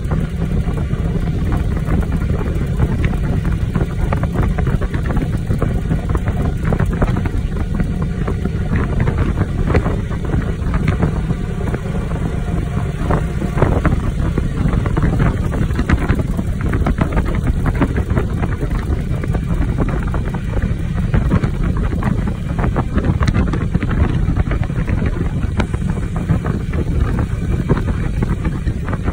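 Steady wind noise buffeting the microphone, mixed with vehicle engine and road noise while riding along at speed.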